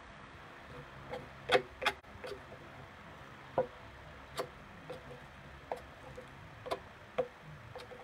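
A series of sharp taps and clicks at irregular intervals, about one or two a second, the loudest pair about a second and a half in, over a steady low hum.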